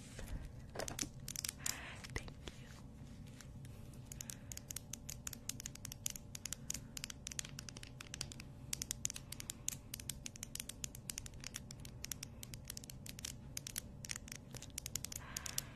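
Long fingernails tapping and scratching rapidly on the plastic frame of light-up LED glasses, close to the microphone: a dense run of fast, crisp clicks.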